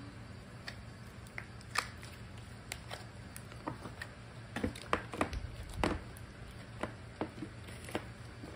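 Thick yellow topoki slime being squeezed, stretched and pressed by hand, making irregular sticky pops and clicks, with a cluster of louder pops a little past the middle. Near the end it is pushed back into plastic tubs.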